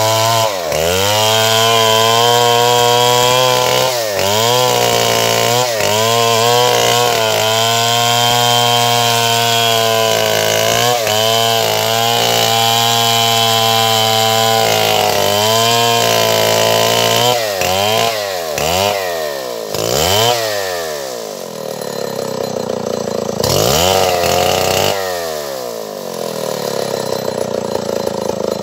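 Stihl 070 two-stroke chainsaw (105 cc) cutting wood at full throttle, its pitch dipping briefly several times as the chain bogs in the cut. From about two-thirds in, the engine is revved up and down in quick blips, then drops toward idle near the end.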